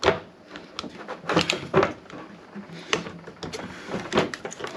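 Flat-blade screwdriver prying and scraping at the old rubber motor mount on a Bell & Gossett Series 100 pump motor's end: a handful of irregular metal clicks and short scrapes as the worn mount is worked loose.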